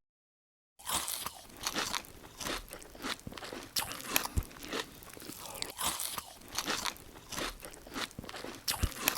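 Crunchy eating sounds: crisp bites and chewing crackling irregularly, several crunches a second, starting about a second in.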